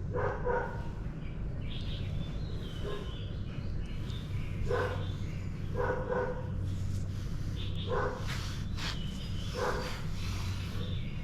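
Dog barking in short single and double barks a second or a few seconds apart, over a steady low rumble, with faint bird chirps in between.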